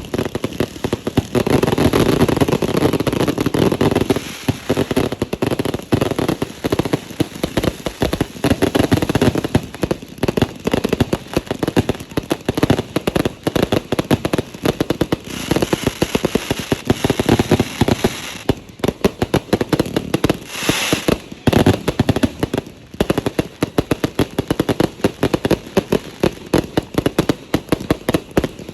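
A large stash of fireworks and firecrackers going off together: a dense, rapid string of bangs and crackles that hardly lets up, with a short dip about two-thirds of the way through.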